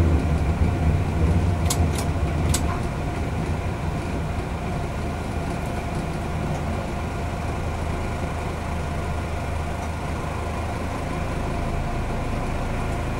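Diesel railcar engine running steadily, heard from the driver's cab. It eases to a quieter, even hum over the first few seconds, with a few short sharp clicks about two seconds in.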